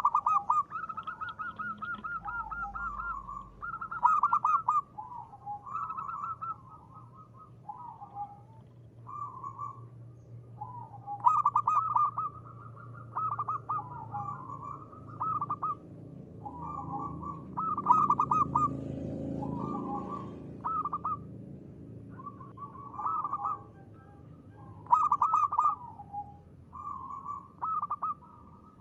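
Zebra dove (perkutut) cooing: short phrases of rapid staccato notes, repeated one after another with brief gaps. A low background rumble swells faintly about two-thirds of the way in.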